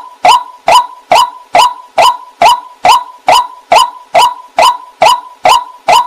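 White-breasted waterhen call: a loud, harsh note repeated at a steady, even pace of a little over two calls a second.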